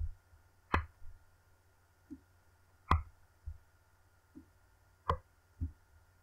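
Scattered single clicks from working a computer mouse and keyboard, about eight in six seconds. Some are sharp and some are duller.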